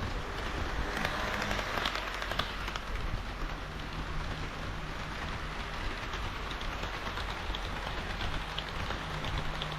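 HO-scale KiHa 40/KiHa 58 model diesel railcar train running on layout track: a steady rolling rattle of small wheels on the rails, full of fine irregular clicks, with a low motor hum that comes and goes.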